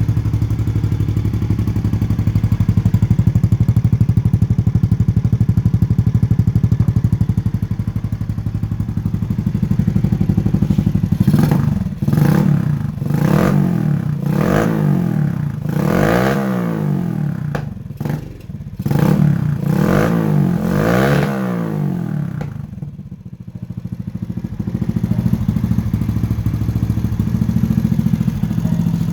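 Honda Biz 125cc single-cylinder four-stroke engine on a motorized bicycle, rumbling loudly: it idles steadily, is revved up and back down about seven times in quick succession, dips low briefly, then settles back to idle.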